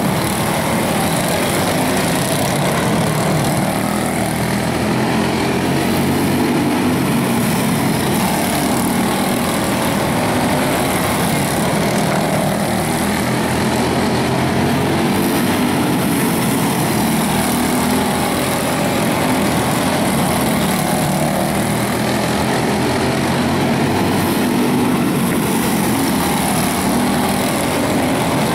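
Several quarter midget race cars' small single-cylinder Briggs & Stratton Animal engines running hard as the cars lap a dirt oval, a steady mixed engine sound with no break.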